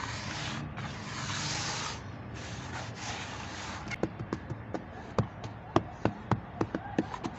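Chunks of red sand being crumbled: three gritty, hissing crumbles over the first four seconds, then a run of sharp, irregular crunching snaps.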